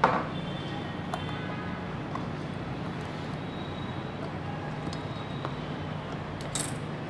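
Steady low background hum with a short knock at the very start and a few faint light clicks as metal tweezers and a small circuit board are handled.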